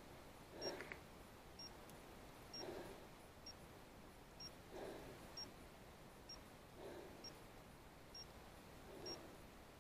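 Very quiet woodland: a soft breath about every two seconds from the hunter standing still, and faint short high ticks about once a second.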